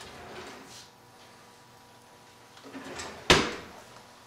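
A single sharp knock from a pot or cooking utensil being handled at the stove, about three seconds in, with a short ringing tail. Otherwise low kitchen room tone.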